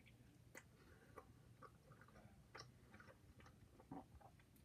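Faint chewing of a mouthful of pepperoni pizza: soft, irregular little clicks from the mouth.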